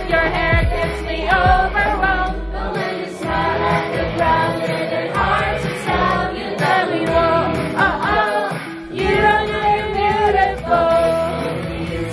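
Karaoke: several people singing together into handheld karaoke microphones over a backing track.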